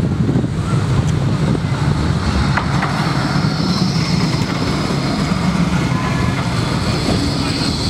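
Bombardier Flexity 2 tram passing close by, a steady rumble of its wheels on the rails, with a high whine coming in from about halfway through.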